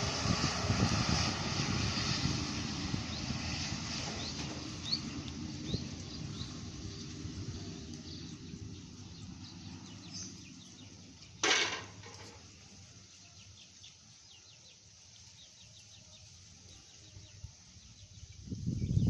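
A road vehicle passing, loud at first and fading away over about eight seconds, leaving a quiet stretch with birds chirping. A brief loud burst of noise about eleven seconds in, and another vehicle coming up loud near the end.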